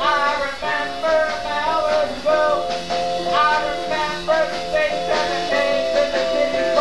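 Live band recording: a voice singing a melody over steadily held instrument notes.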